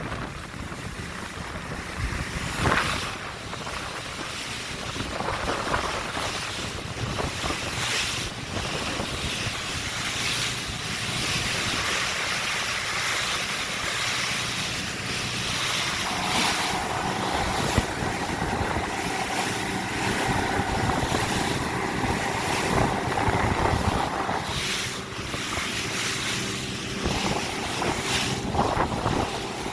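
Wind buffeting the microphone over the rush of water, in uneven gusts. About halfway through, a faint steady hum joins in.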